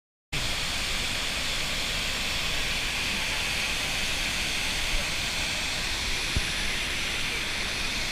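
Steady rush of a waterfall pouring over rock ledges into a pool, an even hiss-like roar, after a brief dropout right at the start.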